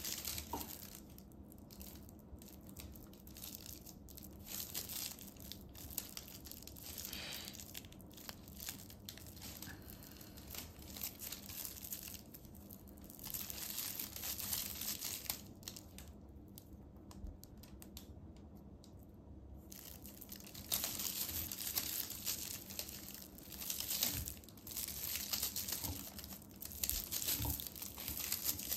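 Plastic Suzuran tape crinkling and rustling in irregular bursts as it is crocheted, with the hook pulling loops of tape through single crochet stitches. There is a lull of a few seconds a little past the middle.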